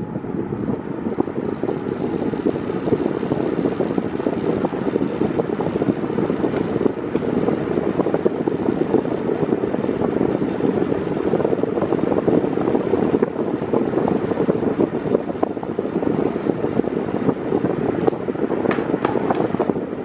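An 8-blade Mondial 40 cm 140 W fan running on its lowest speed, its airflow making a steady rush close to the microphone. A few short clicks near the end.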